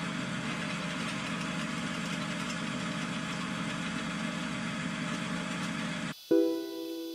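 Pillar drill running steadily with a tap in its chuck, set in a head-bolt hole of an aluminium Subaru EJ25 boxer engine block. About six seconds in, the sound cuts off abruptly and piano music begins.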